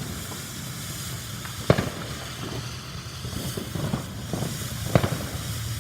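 A consumer firework shooting off, a steady hiss with small pops and two sharp bangs, about two seconds in and again about five seconds in.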